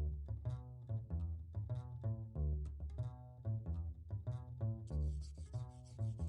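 Instrumental intro music: a steady run of short pitched notes over a deep bass pulse. A hissing percussion part joins about five seconds in.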